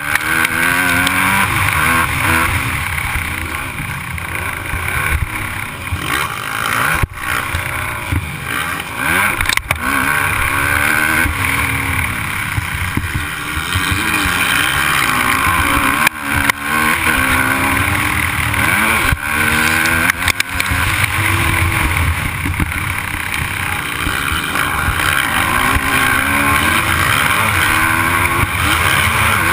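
Motocross dirt bike engine at race pace, its pitch climbing and falling again and again as the rider works the throttle and gears, with a few brief dips in the sound along the way.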